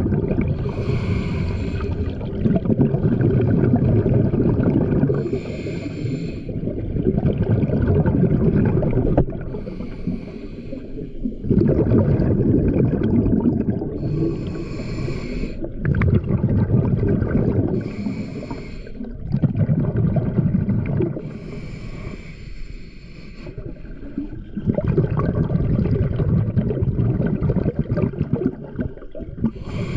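Scuba diver breathing through a regulator underwater: short hissing inhales about every four seconds, alternating with long low rumbling bursts of exhaled bubbles.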